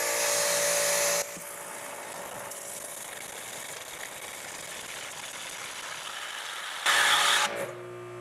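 Ryobi 2700 psi electric pressure washer running, its 40-degree nozzle spraying into a lidded bucket: a motor-and-pump hum under the hiss of water. It is loudest in the first second and again briefly about seven seconds in.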